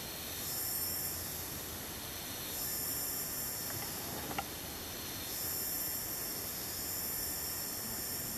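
Cicadas buzzing in a high-pitched drone that swells and fades in long waves. A single faint click comes about four seconds in.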